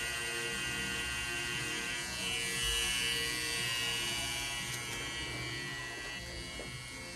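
Electric tattoo machine buzzing steadily, easing off near the end.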